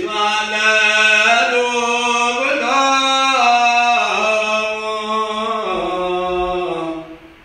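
A man chanting a Ge'ez psalm verse in Ethiopian Orthodox liturgical chant (mesbak), holding long notes that step up and down in pitch. The phrase dies away about seven seconds in.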